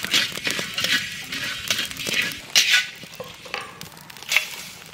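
Metal spatula scraping and stirring whole spices in a dry metal karahi, the seeds rasping against the pan in uneven strokes as they are dry-roasted without oil.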